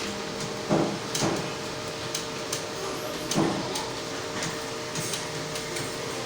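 Computer keyboard being typed on during a typing test: irregular key clicks, a few a second, some louder than others, over a steady hum.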